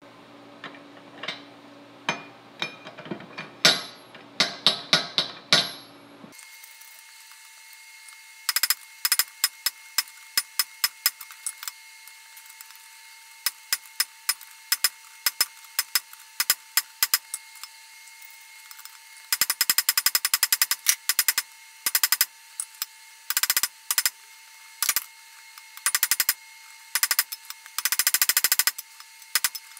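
Hammer blows on the top die of a blacksmith's guillotine fullering tool, driving the dies into a bar of red-hot steel to fuller both sides at once. The ringing metal strikes come singly and in quick runs.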